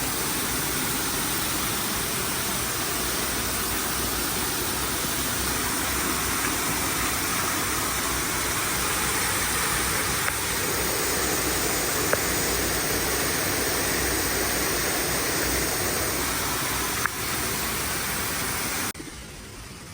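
Steady rushing noise that drops off abruptly near the end.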